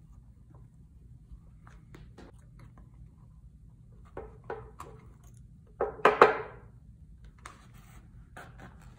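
Hand-stitching leather: small clicks and rustles of a needle and thread worked through punched holes in the leather, with needle-nose pliers gripping the needle to pull it through. A louder, brief scraping noise comes about six seconds in.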